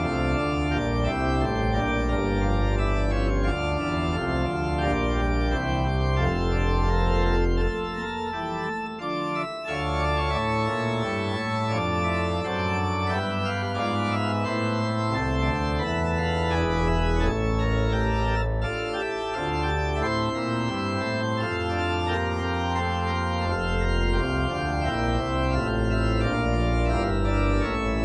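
Ahlborn Hymnus 350 digital church organ playing slow sustained chords over a bass line that drops out briefly twice.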